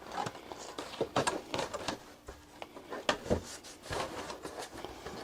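Irregular light knocks, clicks and rustling from handling things, with no steady machine sound.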